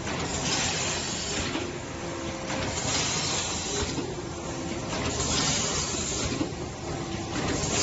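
Automatic pouch filling and packaging machine running: a steady mechanical hum with a hiss that repeats a little over a second apart, in time with the machine's cycle.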